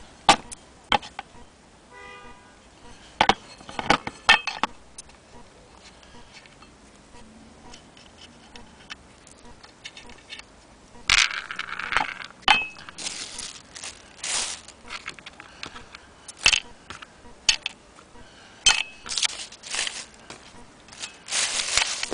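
Handling noises: small metal parts clicking and tapping against the wooden base, with a plastic bag crinkling in several louder bursts in the second half.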